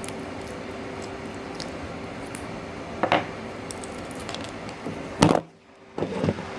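Handling noises: scattered light clicks and knocks, a sharp knock about three seconds in and a louder thump just past five seconds, after which the sound drops out for about half a second. A steady low hum runs underneath.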